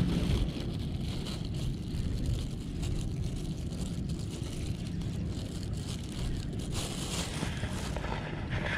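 Steady low wind rumble on the microphone.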